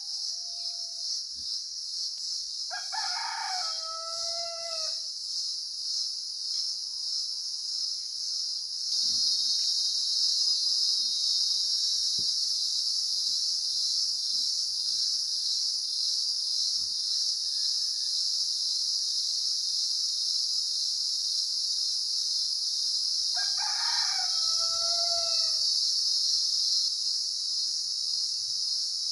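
A steady, high-pitched insect chorus that grows louder about a third of the way in. A rooster crows twice, once a few seconds in and again near the end.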